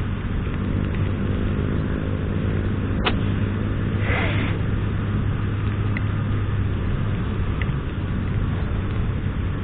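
Motorcycle riding through city traffic: steady engine hum and road noise, with a sharp click about three seconds in and a brief hiss about a second later.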